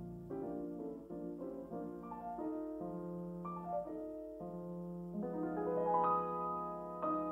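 Piano music: a slow melody of struck notes over held chords.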